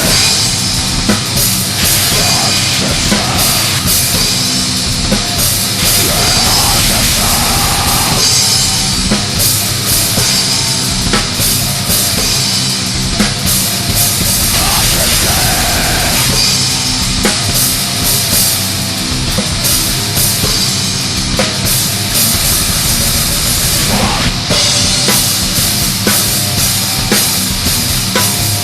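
Loud black/death metal song with a dense, fast drum kit under heavy distorted instruments.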